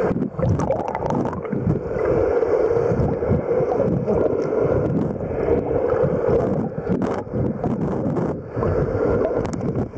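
Muffled rushing and bubbling of water heard underwater, churned up by snorkellers' fin kicks and streams of air bubbles, with irregular low surges.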